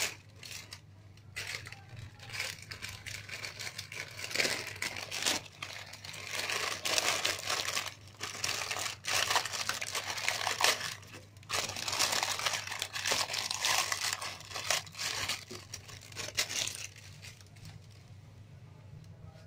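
Plastic instant-noodle packets crinkling and tearing as they are handled and emptied into a pan, in irregular crackly bursts that die away near the end.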